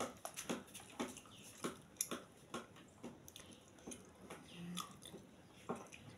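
A person eating amala and okra soup with his fingers: faint, irregular wet smacks, squelches and chewing clicks.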